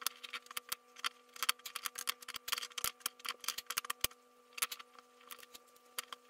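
Small hardwood bottle-stopper blanks clicking and knocking against each other and the wooden workbench as they are shuffled and pushed into a row by hand. The light, irregular clicks come thick and fast at first and thin out in the second half, over a faint steady hum.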